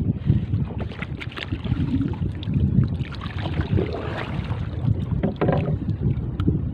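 Wind buffeting the microphone over water lapping and slapping against a small wooden outrigger canoe, with scattered clicks and rustles of the catch being handled in the boat.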